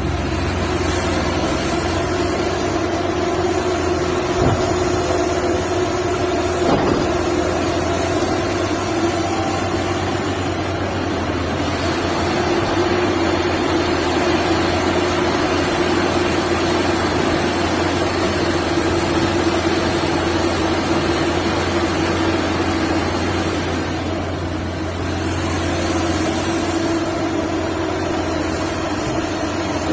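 Liebherr R 954 hydraulic excavator's diesel engine running steadily with a deep, heavy drone. Two light knocks come about four and a half and seven seconds in.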